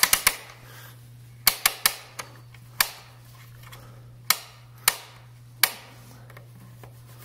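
Thule Yepp Maxi EasyFit rack-mount knob being turned by hand, giving sharp single ratchet clicks at uneven gaps, about nine in all, as the child seat is tightened down onto the rear rack. A faint steady low hum lies underneath.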